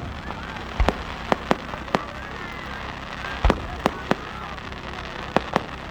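Fireworks display, with shells bursting in sharp, irregular bangs, about nine of them, the loudest about three and a half seconds in.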